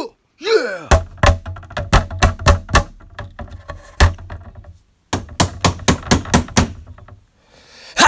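Loud banging from the floor above: rapid runs of heavy thumps and knocks, about three or four a second, with a short break near the middle. A short falling vocal whoop comes just before the banging starts.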